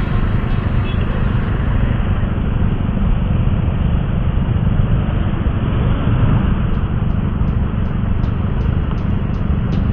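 Steady low rumble of wind buffeting and road noise on a motorcycle-mounted camera's microphone, with scooter and surrounding traffic engine noise underneath, while riding slowly through traffic.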